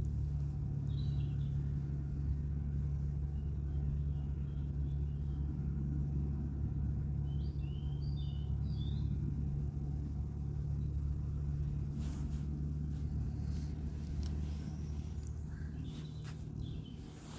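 A steady low rumble with a constant hum, like distant traffic or machinery, with small birds chirping briefly now and then over it.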